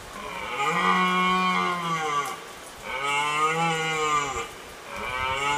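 A cow mooing: three long, drawn-out moos, each rising and then falling in pitch, the third starting near the end.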